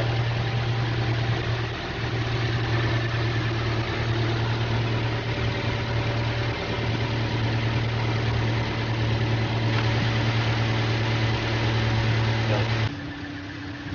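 Petrol Toyota Innova engine idling steadily, with a strong steady low hum. The sound drops suddenly to a quieter level near the end.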